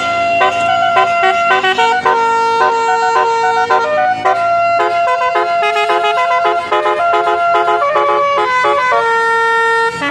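Bus's basuri telolet horn playing a tune: a run of clear horn notes stepping up and down in pitch, some held for a second or more, others tooted in quick repeated notes toward the end.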